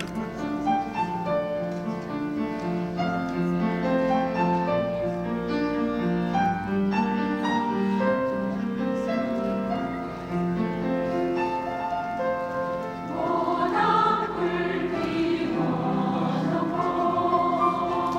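Women's choir singing a Korean song with piano accompaniment, in held, stepping notes. The singing grows fuller and louder about two-thirds of the way through.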